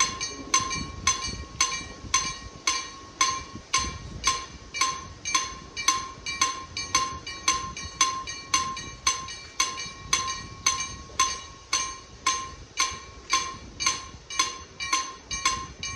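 Level-crossing warning bell ringing steadily at about three strikes a second, each strike a bright metallic ding with the same pitches. It is warning of an approaching train.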